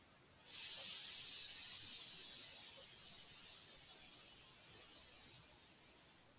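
A steady high hiss starts about half a second in, slowly fades, and cuts off near the end.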